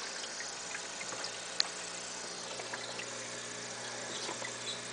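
Steady low electrical hum with an even hiss, the running noise of aquarium equipment such as a filter or air pump. Faint scattered ticks over it, one sharper tick about a third of the way in.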